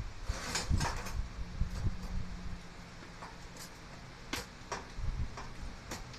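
Tubular metal step stool being handled and set in place: a quick cluster of knocks and clanks near the start, then single sharp knocks every half second or so toward the end.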